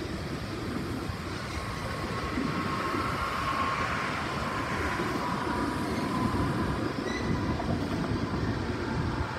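Long Union Pacific freight train of tank cars rolling past, a steady rumble with clatter from the wheels on the rails. A faint wheel squeal swells and fades in the middle seconds.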